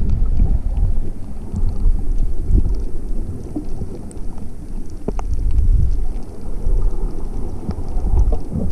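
Ocean water and surf heard underwater: a muffled low rumble that swells and ebbs with the surge, with scattered faint clicks and ticks and one sharper click about five seconds in.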